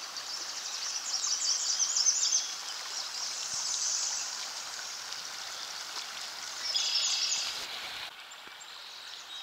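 Shallow creek water rippling over rocks and stepping stones, a steady rush, with a songbird singing quick repeated trills over it, loudest about two seconds in and again near seven seconds.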